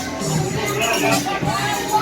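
Music with percussion playing.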